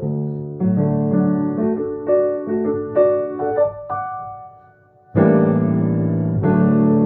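Piano playing: a run of melody notes over sustained bass notes, a short lull, then two loud held chords that close the piece, the last one released abruptly.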